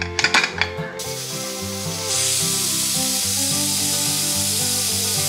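Pelican pressure cooker venting steam at its weight valve: a steady hiss that comes in faintly about a second in and grows louder about two seconds in, the cooker reaching pressure and coming up to its whistle. Background music plays underneath.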